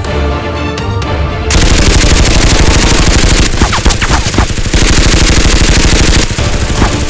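Background music, then from about a second and a half in, loud rapid automatic gunfire that keeps going and eases a little near the end.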